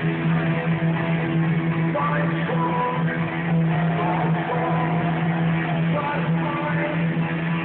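Rock band playing live, with guitars over a steady held low note.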